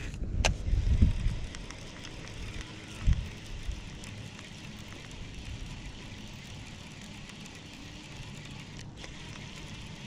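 Baitcasting reel being cranked steadily to retrieve a lure: a soft, even whir with fine ticking. A sharp click comes about half a second in, low handling rumble runs through the first second or so, and a low thud comes about three seconds in.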